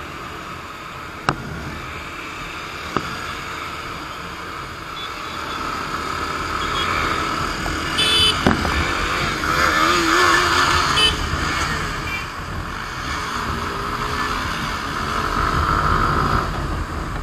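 Motorcycle riding at road speed, its engine running under steady wind and road noise on the helmet camera, rising and falling with the throttle. Two sharp clicks come in the first few seconds, and a brief burst of short high beeps about eight seconds in.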